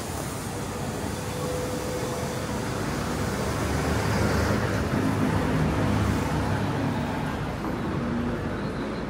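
Road traffic: cars running past steadily, swelling louder as a vehicle goes by in the middle.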